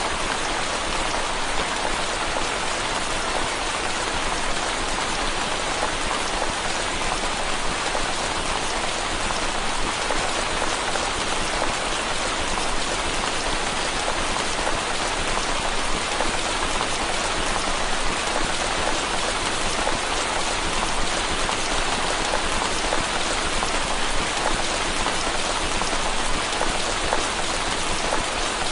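Steady rain on window glass, a dense, even patter of drops that does not let up.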